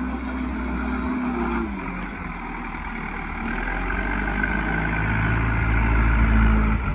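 Diesel engine of heavy earthmoving machinery running, easing off around two seconds in, then building up again toward the end.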